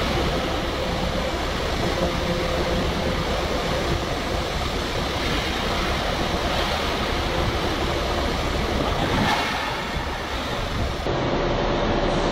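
Steady machinery noise from a JB62D walking piling rig running under test, an even rush with a faint hum. Near the end the sound changes and two faint steady tones come in.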